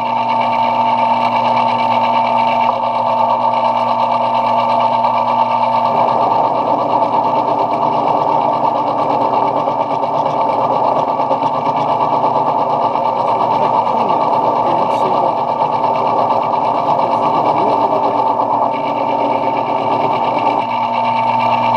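Metal lathe running steadily with a steady machine hum, turning brass bar stock. The sound grows rougher and denser about six seconds in, as if the cut is under way, and eases back shortly before the end.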